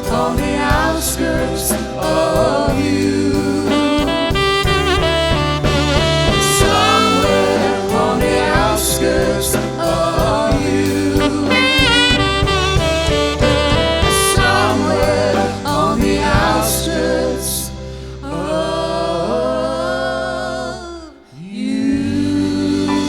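Rhythm-and-blues band playing an instrumental passage, with a saxophone taking the lead over bass, drums and cymbals. Near the end the band settles on long held notes, drops away for a moment, then comes back in on a sustained chord.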